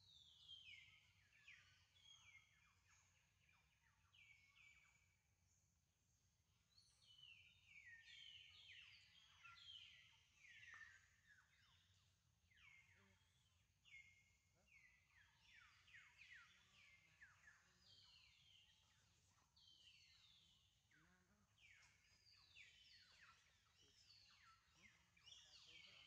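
Faint, high-pitched animal calls, each sliding quickly down in pitch, repeated many times and often overlapping.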